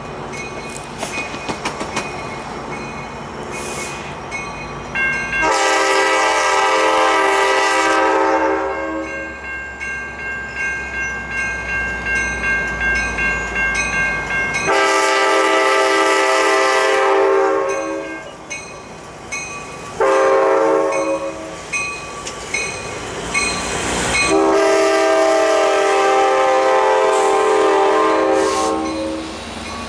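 EMD F59PHI passenger locomotive sounding its multi-tone air horn in four blasts, long, long, short, long: the standard grade-crossing warning. Between the blasts the train runs past with a steady rumble and rail clatter.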